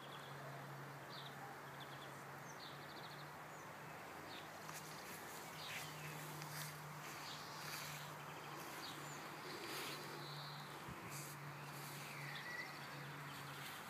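Quiet outdoor ambience: a low buzzing hum that stops and starts, with scattered faint bird chirps and light rustling of a tissue wiping a dog's ears.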